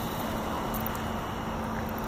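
V929 toy quadcopter's small electric motors spinning at low throttle as it floats in a tub of water: a steady whirr with a faint low hum.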